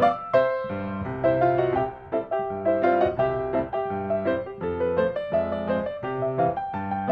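Background piano music: a melodic keyboard tune of quick successive notes.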